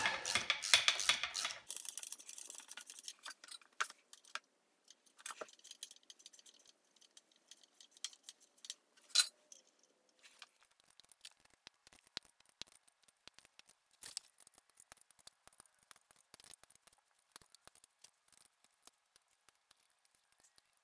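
Hand ratchet clicking rapidly as the mounting bolts of a milling machine's table feed module are tightened, for the first couple of seconds. Then scattered light metallic clicks and taps of handling, with one sharp clink about nine seconds in.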